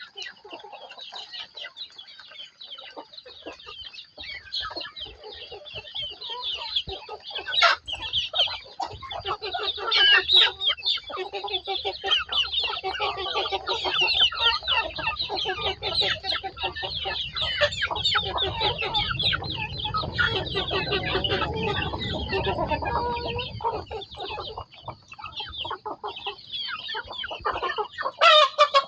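A hen clucking while many chicks cheep, with a constant stream of short high peeps and lower clucks. A low rumble comes in through the middle.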